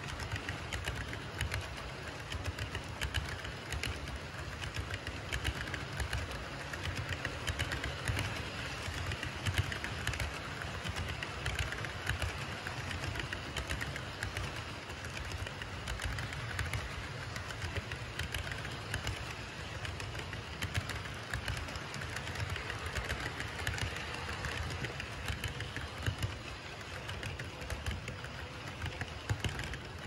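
HO scale model autorack cars rolling steadily along the track, a continuous low rumble with fine rapid clicking and clatter from the wheels on the rails.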